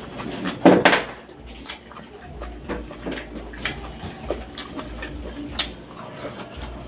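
Close-miked mouth sounds of a person eating rice and fish with bare hands: chewing with scattered small wet clicks, and a louder mouth noise about a second in. A faint steady high whine runs underneath.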